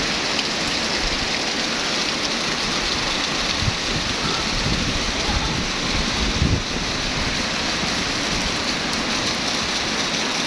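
Heavy rain pouring down steadily in a strong wind, with a few low rumbles about halfway through.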